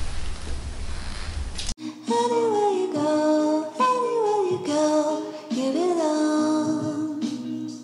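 A steady hiss with a low rumble, then, cut in suddenly just under two seconds in, background music with a singing voice whose melody slides down over held notes.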